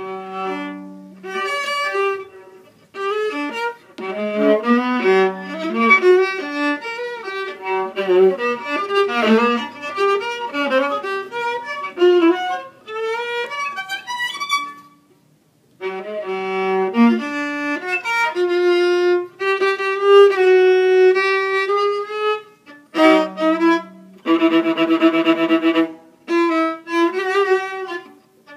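Solo violin played with the bow, a run of melodic phrases that stops briefly about fifteen seconds in. Near the end comes a long held note with vibrato.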